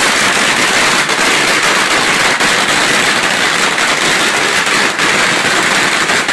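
Firecrackers going off in a dense, continuous crackle, with scattered sharper cracks standing out, loud throughout.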